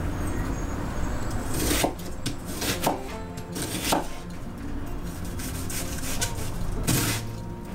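Kitchen knife cutting an onion on a cutting board: a few sharp knocks of the blade hitting the board, spaced a second or more apart, with quieter slicing between them.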